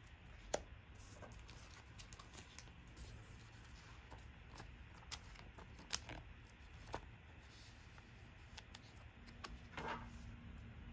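Trading cards being handled on a table: faint, scattered clicks and taps of card stock, with a few sharper ones.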